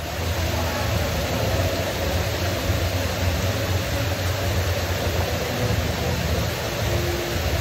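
Decorative rock waterfall splashing into its basin: a steady, even rush of falling water.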